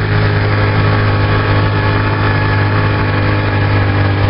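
Honda CG 125 Fan's single-cylinder four-stroke engine running at a steady speed while the motorcycle is ridden, a steady low hum with no revving.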